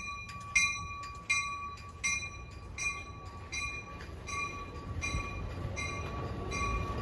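Amtrak Surfliner locomotive's mechanical bell ringing steadily, about three strikes every two seconds, as the train departs. The low rumble of the train gets louder near the end as it starts to move.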